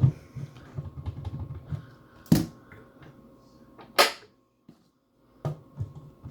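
Wooden cabinet door and its magnetic lock latch being worked by hand: handling noise, then two sharp knocks about two and four seconds in, the second a bright click, as the latch snaps into its locked position.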